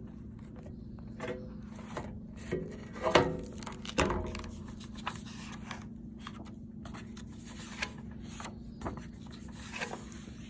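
Hardcover picture book being opened and its pages turned by hand: paper rubbing and rustling with a few louder handling bumps, the loudest about three to four seconds in. A steady low hum runs underneath.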